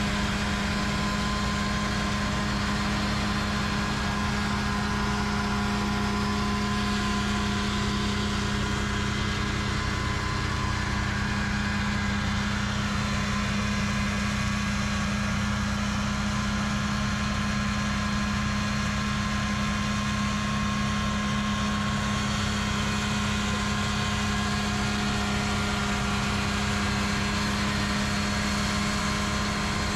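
Engines of a backhoe carrying a snowmobile-engine-driven snowblower, running steadily at a constant speed with an even hum.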